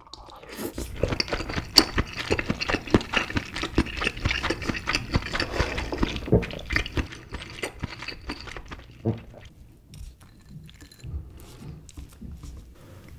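Close-miked wet chewing of a mouthful of king crab meat: a dense run of soft mouth clicks that thins out about nine or ten seconds in, leaving only a few faint clicks and taps.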